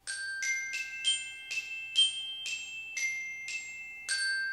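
Logo jingle of about ten bright struck notes in a row, roughly two a second, each ringing on over the next; the last one rings out and fades.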